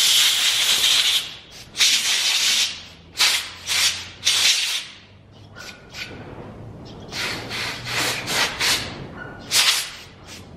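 Aerosol brake cleaner, used as carb cleaner, hissing in a long spray and then a string of short squirts into a chainsaw carburetor's fuel hoses.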